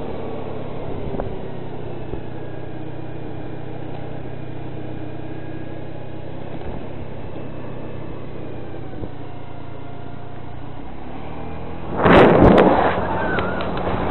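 A steady low drone like a vehicle's engine running, with faint tones sliding slowly up and down above it. About twelve seconds in comes a loud burst of noise lasting under a second, followed by a few sharp clicks.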